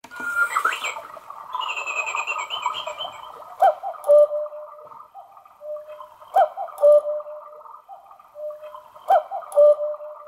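Quartz cuckoo clock sounding its hourly cuckoo call: after a few seconds of high chirping, a two-note call, the second note lower, comes three times about every three seconds, each call starting with a click.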